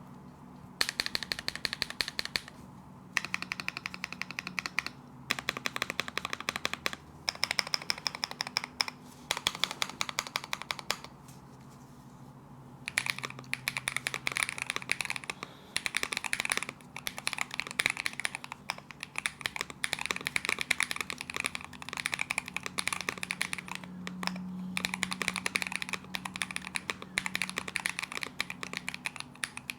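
Fast typing on a Zuoya GMK67 mechanical keyboard with Feker Matcha V2 linear switches: rapid key clacks in long runs, broken by brief pauses, the longest about 11 to 13 seconds in.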